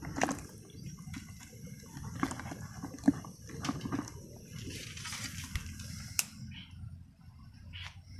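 Climbing perch flapping in a little water inside a plastic bucket: irregular knocks and small splashes, sharpest about three seconds in and again near six seconds.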